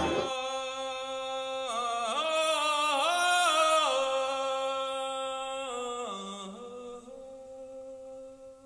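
A single voice singing slow, long-held notes that glide up and down between pitches, swelling in the middle and then fading away toward the end.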